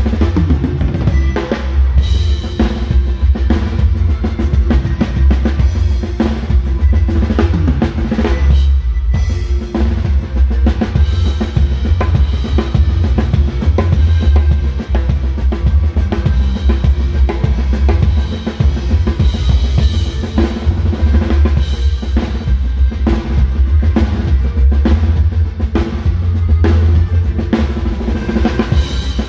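Drum kit played live at a driving, steady beat: bass drum, snare and cymbals under the rest of a norteño band's music.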